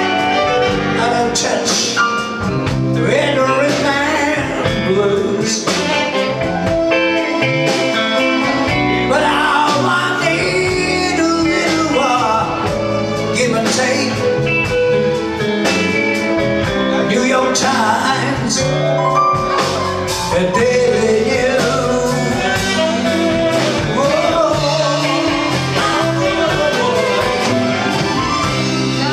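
A live band playing with singing, from a line-up of drums, keyboards, guitar and saxophone.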